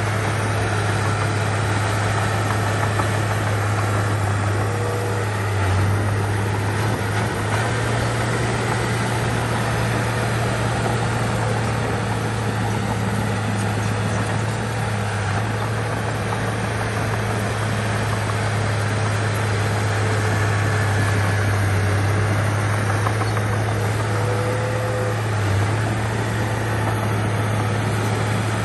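Bulldozer's diesel engine running steadily with a constant low drone and no change in revs.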